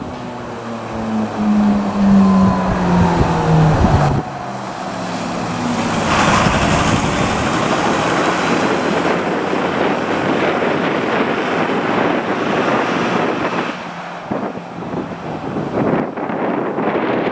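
A fire engine driving past, its pitched engine note gliding downward as it goes by; about four seconds in this gives way abruptly to a steady rush of road noise and wind on the microphone.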